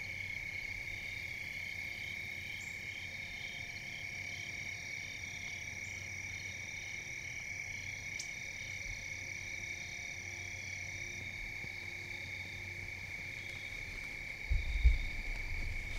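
Steady evening chorus of insects, a continuous high-pitched drone with a pulsing call above it. About a second and a half before the end a sudden loud low thump and rumble cuts in.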